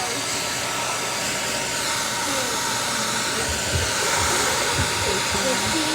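Hair dryer blowing steadily, with a few soft low bumps about midway.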